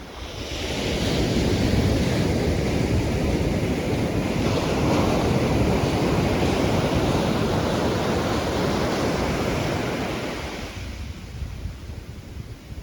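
Sea surf: a wave breaking and washing up the shore, swelling about half a second in and dying away after about ten seconds.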